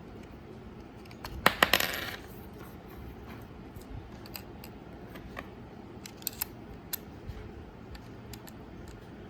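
Small metallic clicks and a short clatter about one and a half seconds in, then a few scattered light clicks: a PX625 button-cell battery and its screw-in cover being handled in the battery compartment of a Minolta SRT 102 film camera.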